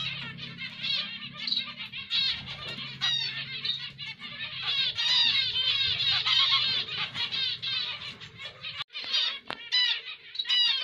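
Zebra finches calling: a dense run of short, nasal, beeping calls from several birds that overlap rapidly and are busiest in the middle. A low steady hum underneath stops about nine seconds in.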